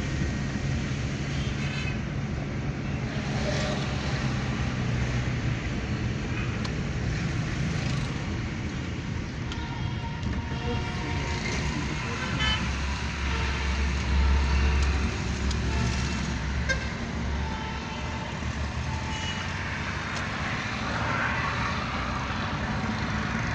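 Road traffic noise: a steady mix of vehicle engines and tyre hiss, with short car horn toots now and then, and a deeper rumble swelling for a few seconds around the middle.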